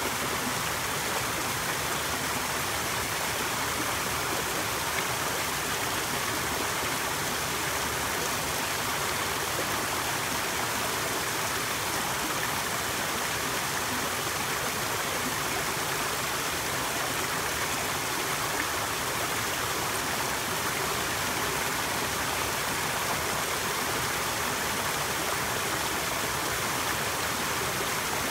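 Small garden waterfall pouring over stone ledges into a pool: a steady rush and splash of falling water.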